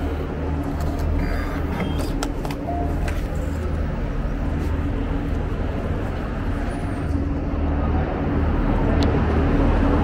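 Steady low hum of idling diesel multiple-unit trains in the station, with a few light clicks in the first three seconds.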